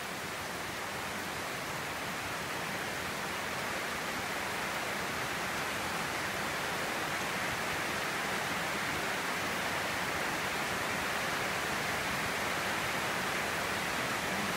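Steady rain falling on a roof and trees: an even hiss with no separate drops standing out. It grows slightly louder over the first few seconds.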